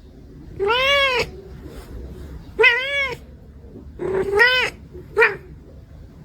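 A domestic cat meowing four times, each meow rising and falling in pitch, the last one short.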